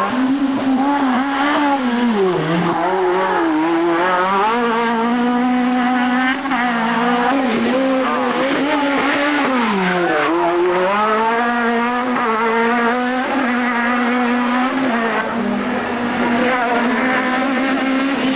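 Renault Clio Maxi Kit Car's rally engine running hard at high revs. The pitch drops sharply and climbs back twice, about two seconds in and again about ten seconds in.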